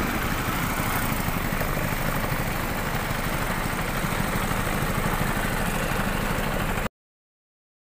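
An engine running steadily with a fine, even flutter. It cuts off suddenly about seven seconds in.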